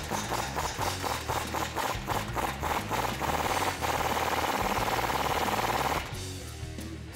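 Pneumatic impact wrench hammering on a rusted, corroded exhaust flange bolt to break it loose: a few short bursts, then a steady rapid rattle for about three seconds that stops about six seconds in.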